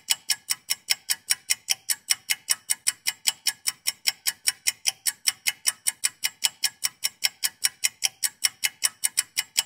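Rapid, even ticking, about five ticks a second, with no other sound behind it.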